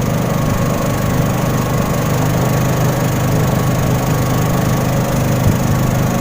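Klotok (small wooden motorboat) engine running steadily at a constant speed.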